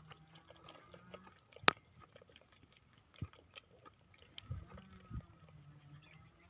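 Livestock chewing feed: many small, irregular crunches and clicks, with one sharp click about 1.7 seconds in. A low, drawn-out call runs for about two seconds from around halfway through.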